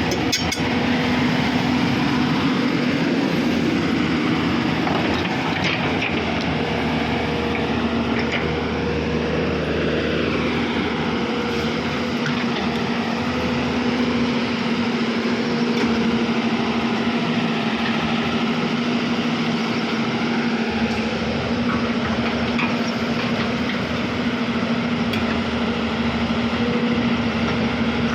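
Hyundai 210 excavator's diesel engine running steadily under operation, with a constant low hum and slowly shifting higher tones over it.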